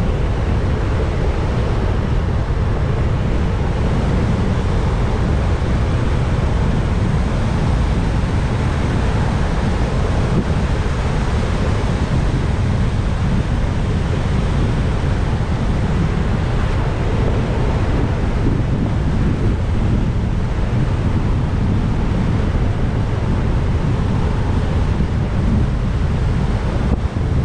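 Steady, loud wind rush on the microphone of a moving motorcycle, a heavy low rumble with no breaks.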